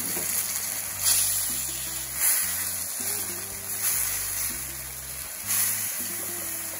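Background music over chicken breasts and mushrooms sizzling in chicken broth in a stainless steel skillet.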